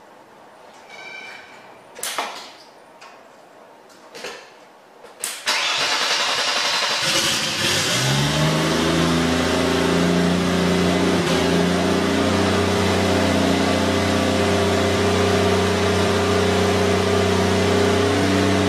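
A few clicks, then the Mercedes 300TE's straight-six engine cranks on the starter for a second or two and catches. It rises briefly in speed, then settles into a steady idle.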